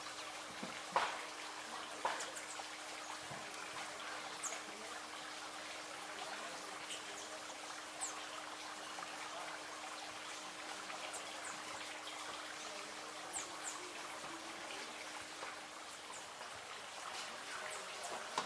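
Steady rushing of a forest stream, with thin, high, short bird chirps now and then and a faint steady hum. Two sharp knocks about a second and two seconds in.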